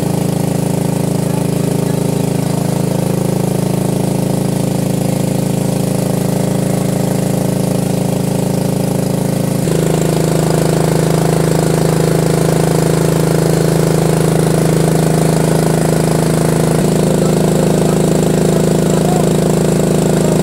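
Portable generator engine running steadily, its note changing abruptly about ten seconds in.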